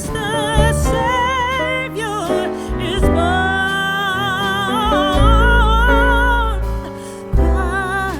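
Background music: a slow song with a singer holding long notes with vibrato over instrumental accompaniment.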